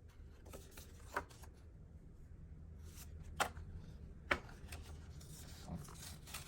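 Paper strips being handled, rustling, with three sharp clicks or snaps spread through it.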